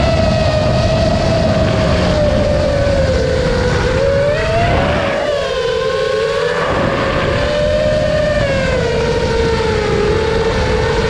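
FPV quadcopter's brushless motors and 5-inch props (HypeTrain 2207 2450KV on 4S) whining, the pitch wavering up and down with throttle over a low rush of air. About five seconds in the throttle is cut: the low rush drops away and the whine bends for a second or so before power comes back.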